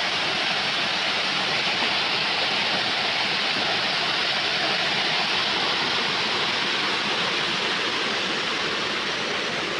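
Small waterfall pouring over rock into a pool: a steady rush of falling water.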